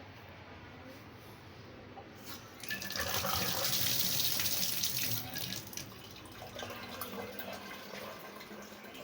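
Water running from a tap. A strong splashing flow starts a little under three seconds in, then eases to a lighter stream.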